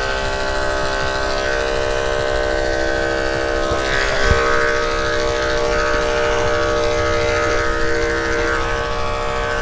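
Electric pet grooming clipper fitted with a snap-on comb, running with a steady buzz as it skims a puppy's coat.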